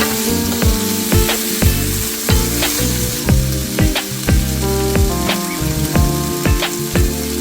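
Food frying in a pan, sizzling steadily, with frequent sharp clicks of a utensil stirring against the pan. Background music plays along with it.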